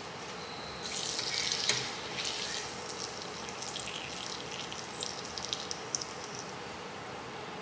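Hot oil sizzling and crackling in a stainless steel frying pan as fried vegetable fritters are lifted out with a slotted skimmer. It swells briefly about a second in, then goes on as scattered pops and crackles.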